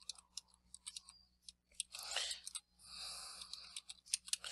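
Computer keyboard keys tapped in short, irregular clicks as a word is typed, with a couple of soft breathy hisses between them.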